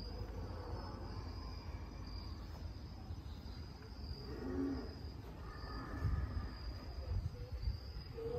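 Crickets chirping in a steady high trill, with a few low thumps in the second half.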